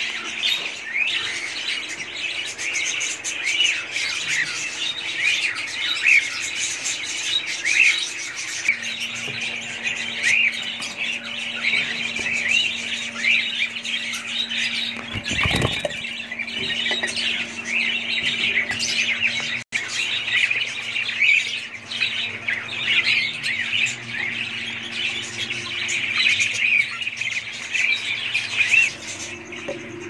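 A colony of small caged parrots chattering with many overlapping chirps and squawks, with a brief knock about halfway through.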